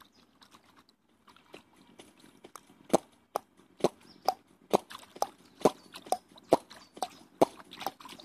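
Water plopping and splashing right at a phone held at the surface by a swimmer, a regular run of sharp plops about two a second that begins about three seconds in.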